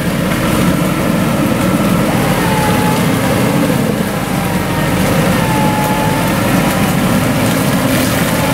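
Off-road vehicle engine running steadily, with a faint whine that comes and goes twice, bending slightly in pitch.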